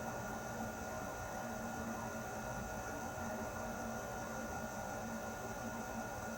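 Air conditioner running steadily: an even rush of air with a low hum and a few faint, constant higher tones.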